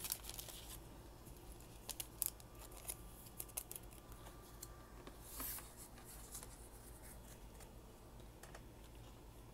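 A trading card being slid into a clear plastic card sleeve and laid on the table: faint plastic rustling and scattered light clicks, with a short louder rustle about five and a half seconds in.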